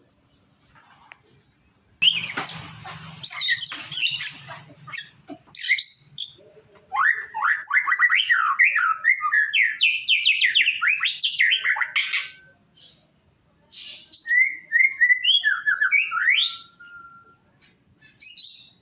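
White-rumped shama (murai batu) singing: loud, rapid, varied phrases of whistles, trills and harsh notes, in several bursts with short pauses between.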